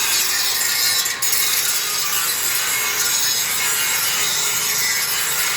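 Angle grinder grinding steel: a steady, harsh hiss with a short break about a second in.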